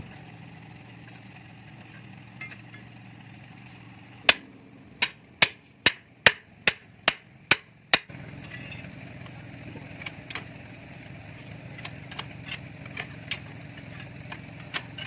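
Hammer blows on metal: a single strike, then a quick even run of about eight loud blows at two to three a second, followed by lighter scattered taps.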